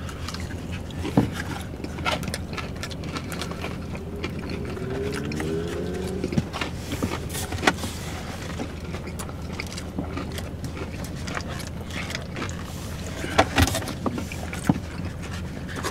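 Eating sounds inside a car: scattered clicks and rustles of takeout containers and plastic utensils over a steady low hum in the cabin, with a few sharper clicks, twice close together near the end.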